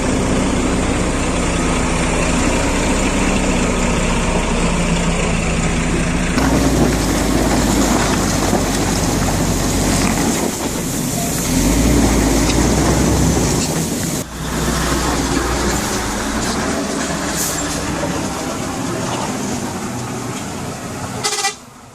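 Loaded log truck's diesel engine running as it drives, with a steady engine hum and road noise. The sound changes abruptly about six seconds in and again about fourteen seconds in.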